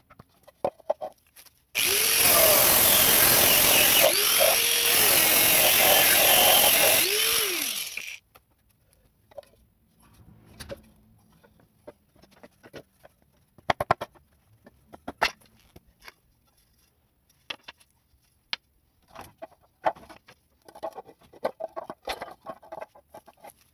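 A handheld electric power tool cutting through a siding panel for about six seconds, its motor pitch sagging and recovering three times as the blade bites. Afterwards, scattered knocks and clacks as the cut pieces of siding are handled and set down.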